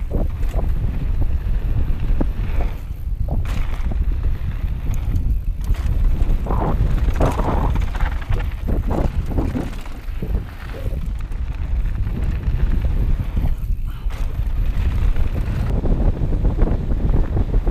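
Wind buffeting the helmet camera's microphone at riding speed, over the crunch of mountain bike tyres on dirt and gravel and the bike rattling over bumps.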